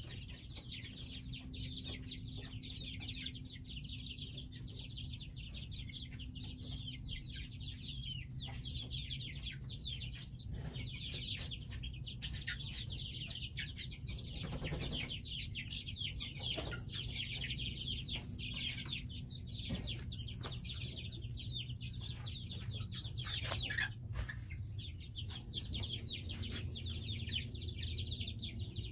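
A group of young chicks peeping continuously, many short high chirps overlapping without a break, over a low steady hum. There is a brief knock about two-thirds of the way in.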